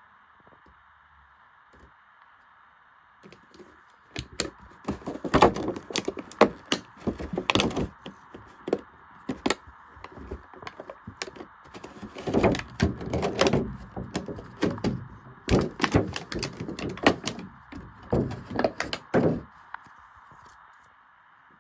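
Stiff clear plastic packaging tray clicking, crackling and knocking as a small plastic toy house is worked loose and lifted out of it: a busy run of sharp knocks and clicks starting about four seconds in and stopping shortly before the end, over a faint steady hiss.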